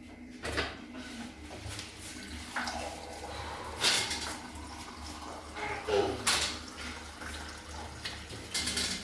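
Water pouring into a glass for a drink, with a few sharp knocks and clinks scattered through, the loudest about four and six seconds in.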